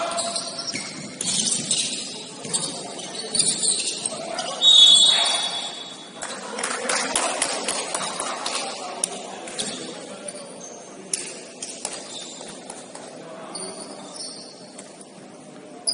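Basketball game sounds in a gym: the ball bouncing on the court, sneakers squeaking and scattered voices of players and onlookers. A short, loud high tone about five seconds in is the loudest sound.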